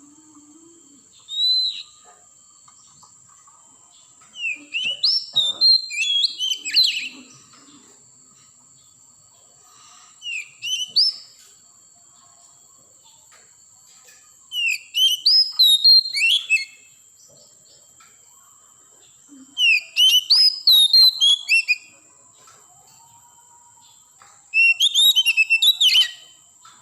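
Oriental magpie-robin singing: six separate bursts of rapid, varied whistles and chirps, each lasting one to three seconds, with pauses of a few seconds between them.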